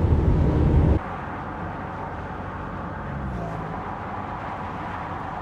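Vehicle noise: a low rumble that stops abruptly about a second in, leaving a steady, quieter noise with a brief low hum about three seconds in.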